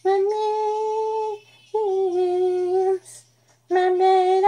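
A woman singing three long held notes with short breaks between them.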